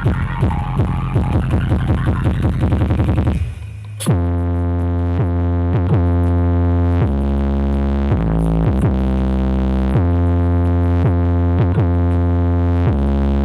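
Electronic dance music with heavy bass played loud over a big sound system during a sound check. Quick, dense beats for the first three and a half seconds, a brief drop-out, then long held bass notes that shift every second or two.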